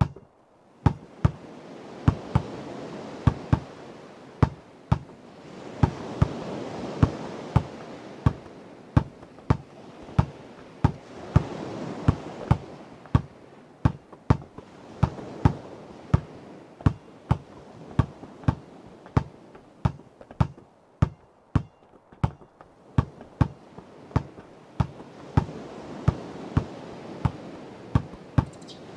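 A basketball dribbled steadily on a hard surface, about two bounces a second, over ocean waves washing on a shore that swell and ebb every few seconds.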